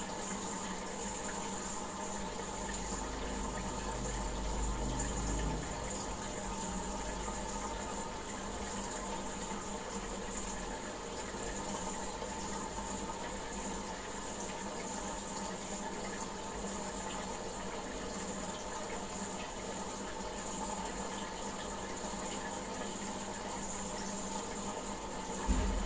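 Aquarium tank water trickling and bubbling steadily from its filter or aerator, with a steady hum underneath. A low rumble comes in for a few seconds early on, and a short knock sounds near the end.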